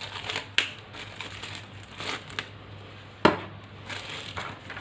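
Packaging crinkling and rustling as the box contents are handled, with scattered sharp clicks, the loudest about three seconds in.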